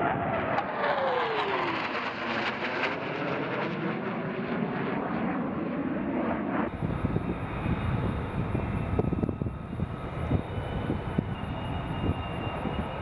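Fighter jets' engines passing low overhead, their pitch falling steeply as they go by. About six and a half seconds in the sound changes abruptly to a more distant jet engine rumble with a faint, steady high whine.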